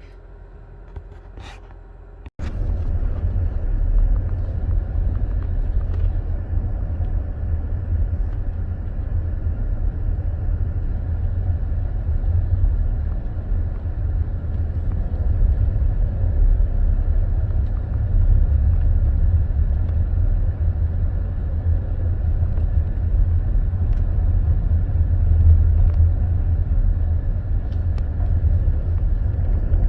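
A car driving, a steady low rumble of road and engine noise that starts abruptly about two seconds in, after a quieter stretch with a few clicks.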